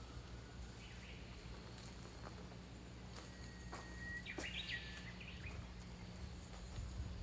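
Faint outdoor ambience with a single bird call about four seconds in: a held whistle that breaks into a short warble. Scattered small clicks throughout.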